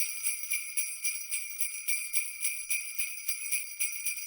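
Sleigh bells jingling in a steady, even rhythm of about four shakes a second.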